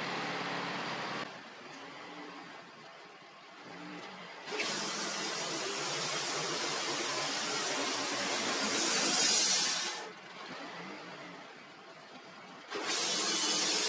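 Wood-Mizer LT15 portable band sawmill running, its band blade sawing through a hard maple log with a loud, steady hiss. The cutting sound starts abruptly about a third of the way in, drops back to quieter running after several seconds, and comes in loud again near the end.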